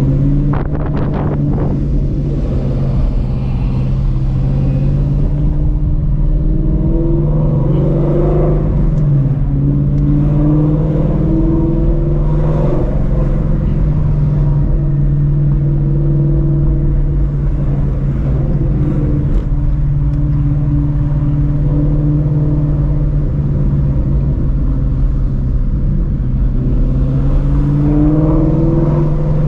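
Straight-piped Ford Mustang Shelby GT350's 5.2-litre flat-plane-crank V8 with long-tube headers, running steadily while driving, its exhaust pitch climbing briefly a few times under light throttle.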